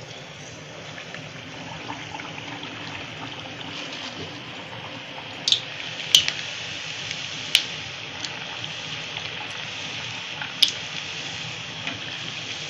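Sweet pumpkin dough puri (gharge) deep-frying in hot oil in a steel kadhai: a steady sizzle that grows slowly louder once the dough is in the oil, with four sharp crackles from spattering oil between about five and eleven seconds in.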